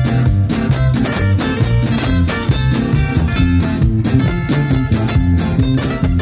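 Live band playing, loud and steady: acoustic guitars strummed over bass guitar and drums.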